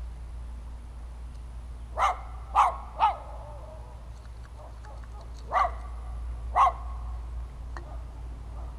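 A dog barking: three quick barks about two seconds in, then two more spaced a second apart a few seconds later.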